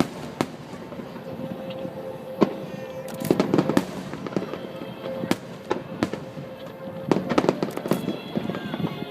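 Fireworks bursting, with sharp bangs and crackling that come in quick clusters, over music playing along with the display.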